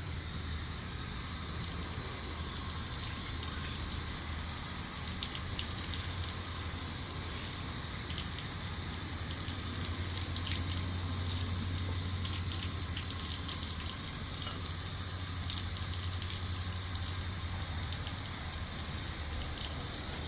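Garden hose spraying water over bicycle handlebars, brake levers and shifters, rinsing off degreaser: a steady hiss with small spatters and a low hum underneath, stopping at the very end.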